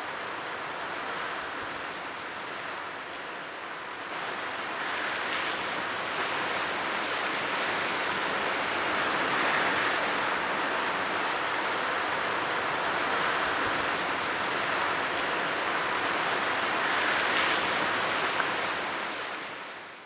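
Sea surf breaking on a rocky shore: a steady rushing wash that grows louder about four seconds in, with several swells as waves break, then fades out at the end.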